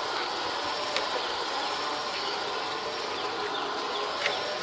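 Steady outdoor background noise, a continuous even hiss, with a faint click about a second in and another near the end.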